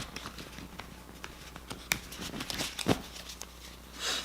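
Tarot cards being handled: scattered soft clicks and taps of cards against each other and the table, with a brief rustle just before the end as a shuffle begins.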